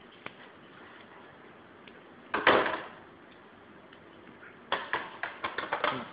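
Dissecting scissors and gloved hands working a lamb heart while it is cut open along the aorta: a short loud rustle about two seconds in, then a quick run of clicks and snips near the end.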